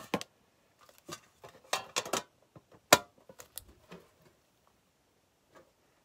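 Trading cards and a metal Yu-Gi-Oh card tin being handled: a run of light clicks, taps and rustles, with one sharp click about three seconds in, then only a few faint ticks.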